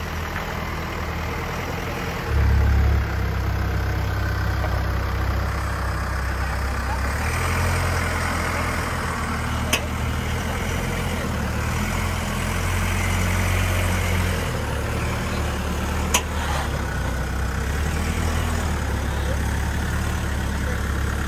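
Jeep truck engine running at low revs as the truck crawls up steep rock, its note rising and easing with the throttle, with a short louder surge a couple of seconds in. A sharp click or knock sounds twice, once near the middle and once later.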